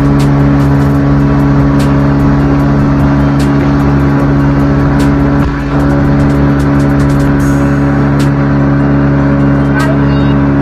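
A motor vehicle's engine running at steady revs, a constant drone that does not rise or fall, with scattered sharp clicks over it.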